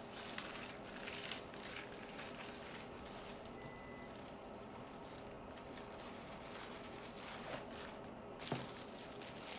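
Faint crinkling and rustling of a plastic oven bag being handled, busier in the first few seconds and again briefly near the end, over a low steady hum.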